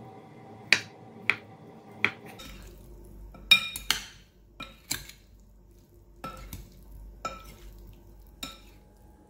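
A knife cutting through cooked beetroot and knocking on a bamboo cutting board, three sharp knocks. Then metal utensils clinking and scraping against a glass bowl as diced beet and corn are tossed, irregular ringing clinks with the loudest pair about halfway through.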